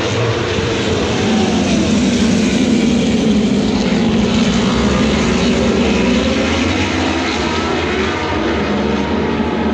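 A pack of racing motorcycles passing on the circuit, several engines at high revs blending together. Their pitch rises and falls as they go by, and they are loudest a couple of seconds in.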